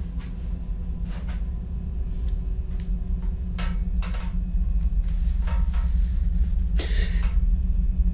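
A low, steady rumble that slowly grows louder, with scattered faint knocks and one louder scraping rustle about seven seconds in.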